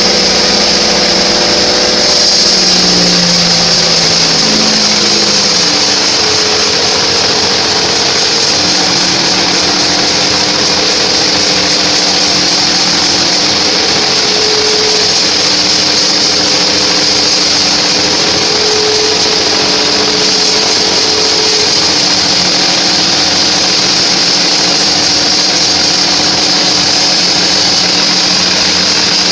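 Homemade sawmill band saw running and cutting through a trembesi log, a steady loud high hiss over the drive motor's hum. The motor's pitch drops a few seconds in, then holds steady.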